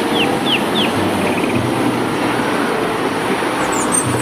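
Heavy three-axle tipper truck's diesel engine running steadily, with a constant rumbling noise throughout. A few high, falling chirps sound at the very start.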